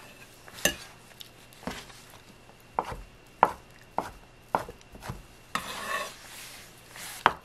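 Chef's knife cutting thin egg-omelette sheets into strips on a wooden cutting board, with a sharp knock of the blade on the wood at each cut, about eight cuts at uneven spacing. Around six seconds in the blade scrapes across the board as the strips are scooped up.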